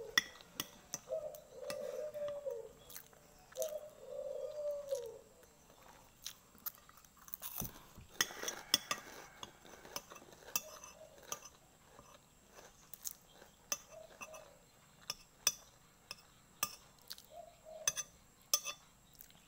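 A metal spoon clinking and scraping on a glass plate while someone eats, with chewing; a denser crunchy stretch about eight seconds in. Three short falling hum-like sounds come in the first five seconds.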